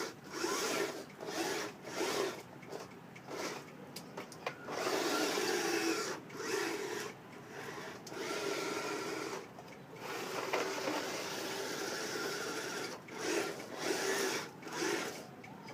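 Small snow plow scraping snow along pavement in stop-start pushes: repeated short stretches of rough scraping broken by brief pauses.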